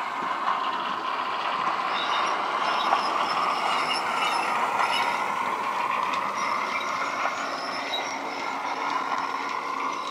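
Bachmann OO gauge Class 08 shunter's DCC sound decoder playing a Class 08 diesel engine sound through the model's small speaker, running steadily as the loco moves a train of wagons, with light clicking from the model's wheels on the track.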